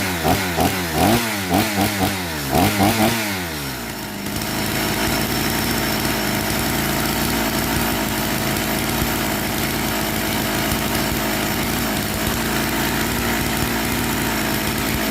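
Petrol Husqvarna chainsaw engine revved in a quick run of short throttle blips, two or three a second. After about three and a half seconds it settles into a steady idle.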